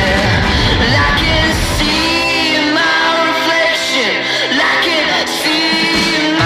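Indie pop-rock song: a lead voice singing a melody over a full band.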